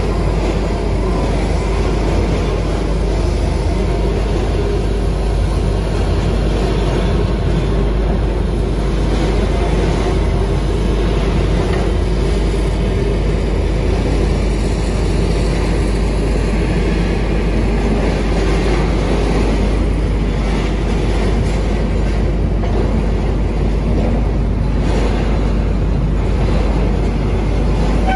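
XCMG XR360 rotary drilling rig running steadily while drilling, its Cummins diesel engine and hydraulics working under load.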